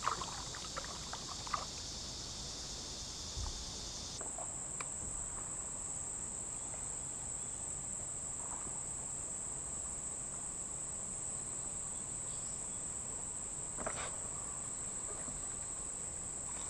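Insects trilling steadily in a high, continuous chorus that narrows about four seconds in to a single steady high-pitched note, with a few faint clicks.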